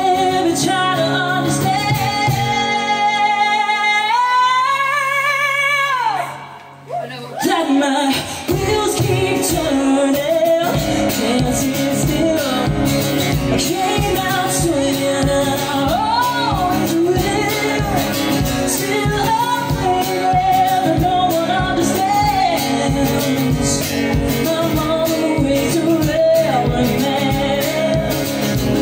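Live band performance with a woman singing and acoustic guitar. A long wavering sung note rises at its end, there is a short break about six seconds in, then the full band comes back with a steady drum beat under more singing.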